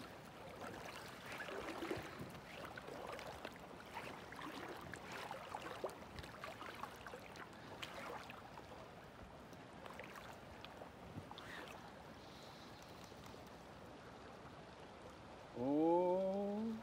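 Faint river water lapping and swirling around a wading angler's legs, with small scattered splashes. Near the end comes a short man's vocal sound rising in pitch.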